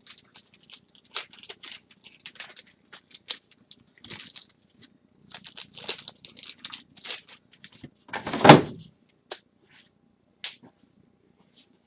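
Plastic card sleeves and packaging handled by hand: scattered light crinkles and clicks, with one louder rustle about eight seconds in.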